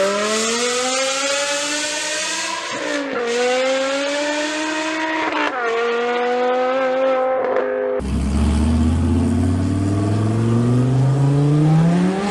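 Supercar engines at full throttle: one car accelerating hard at high revs, its pitch climbing and dropping at two upshifts about three and five and a half seconds in. About eight seconds in it cuts abruptly to a lower-pitched engine revving steadily upward.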